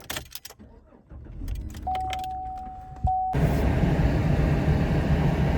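Keys jangling, then a pickup truck's engine starting and running, with a steady warning tone for about a second and a half. About three seconds in this gives way abruptly to the louder, even engine and road noise of the truck driving.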